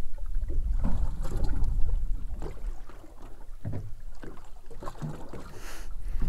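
Wind and water around a drifting boat. A low rumble of wind on the microphone is loudest in the first two or three seconds, with water slapping at the hull and a few light knocks.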